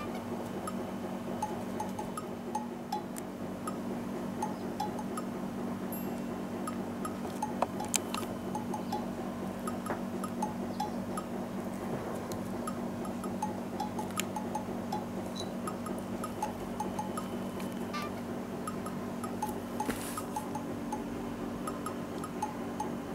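Light background music: a cheerful tune of soft chimes and a ticking beat over a steady low tone. There are a couple of sharp clicks, the loudest about eight seconds in and another about twenty seconds in.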